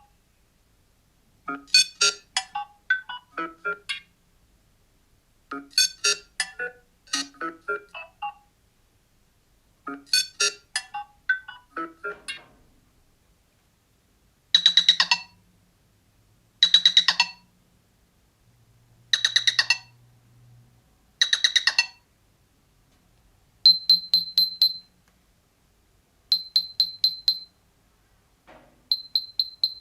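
Nothing Phone (1) playing its built-in ringtones through its speaker, one after another. First comes a short melodic chime phrase, repeated about every four seconds. About halfway through, a buzzier ring sounds in four bursts of roughly a second each, and in the last few seconds come quick clusters of high ticking tones.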